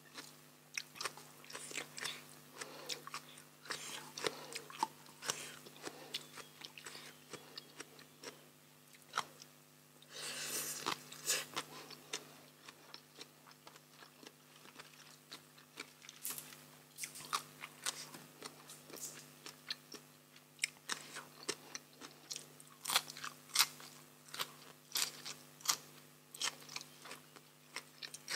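Close-miked eating of spicy green papaya salad and crisp raw vegetables: irregular sharp crunches and wet chewing, with a longer, noisier stretch about ten seconds in.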